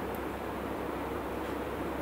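Water pouring in a steady stream from a plastic bottle into a Thermomix's stainless steel mixing bowl, an even low rushing without splashes.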